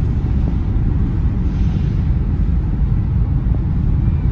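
Steady low rumble of wind and ship noise on a car ferry's open deck.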